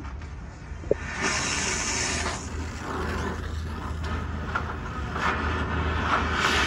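Gas cutting torch burning against a stuck steel bolt on a truck leaf spring, its flame hissing. A sharper, higher hiss comes in about a second in and lasts about a second, over a steady low hum.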